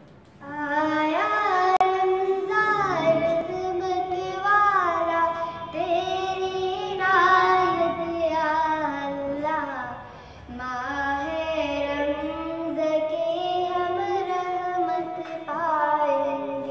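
A young girl singing solo, a melody in long phrases with held, wavering notes and a short pause for breath about ten seconds in.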